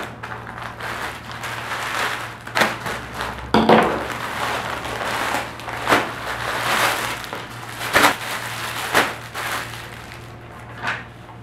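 Scissors snipping open a plastic DHL Express courier mailer, then the plastic crinkling and rustling as the bag is pulled open and a plastic-wrapped blouse is taken out, with several sharp clicks along the way.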